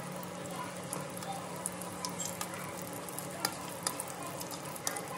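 Breaded chicken pieces sizzling in hot oil in an aluminium kadai, with frequent small pops and crackles, while a metal perforated skimmer stirs and turns them in the pan.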